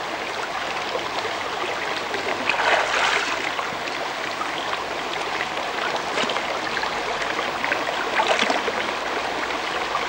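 Shallow stream water running steadily, with a few louder splashes and sloshes as a person wades and moves her legs in the water, strongest about two and a half seconds in and again near eight seconds.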